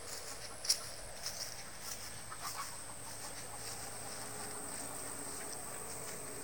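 Steady high-pitched insect buzz with footsteps swishing through long grass. A few short clucks from nearby backyard chickens come in the first half.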